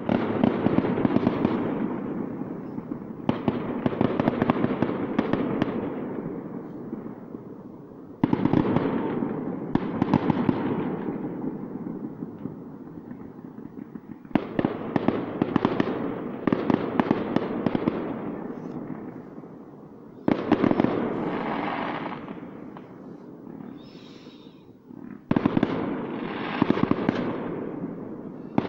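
Distant fireworks displays: rapid volleys of bangs and crackling that start suddenly, about six times, each fading away over several seconds.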